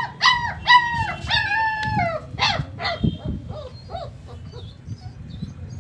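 German Shepherd puppies whining: a quick run of high-pitched calls over the first three seconds, each bending down in pitch at its end, then fainter, scattered whines.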